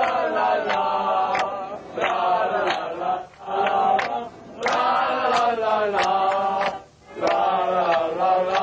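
Group of male voices singing a Flemish folk song together, in long drawn-out phrases with short breaks between them. Short sharp ticks sound now and then over the singing.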